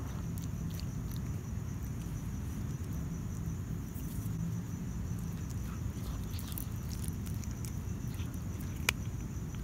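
Domestic cat chewing and crunching into a rat's head: scattered small wet clicks and crunches, with one sharper crack near the end. Crickets chirr steadily behind it.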